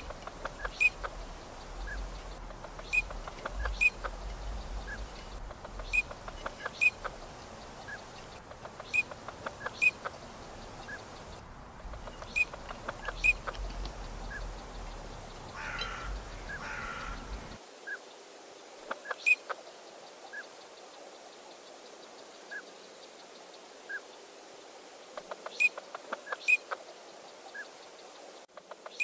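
Eurasian teal drakes giving their short, high whistled 'krick' calls again and again at irregular intervals, with a brief harsher two-part call just past halfway. A low rumble runs underneath for the first two thirds and then cuts off.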